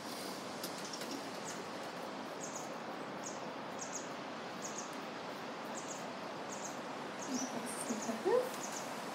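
A small bird chirping over a steady background hiss: short, high chirps repeated about every two-thirds of a second, with a few faint lower sounds near the end.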